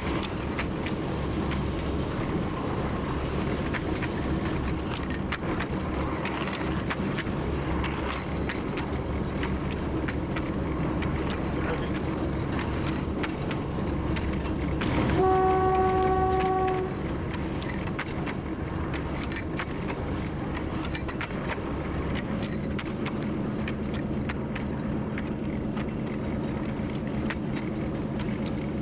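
TU7 narrow-gauge diesel locomotive running steadily, with short clicks of the wheels over the track. About halfway through it sounds one horn blast of just under two seconds.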